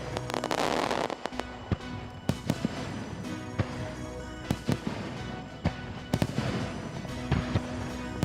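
Fireworks bursting in quick, irregular succession, with many sharp bangs and crackling, over music with held tones.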